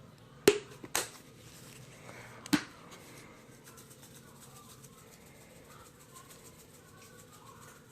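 Three sharp clicks about half a second, then a second and a half apart, as a seasoning container is opened and handled.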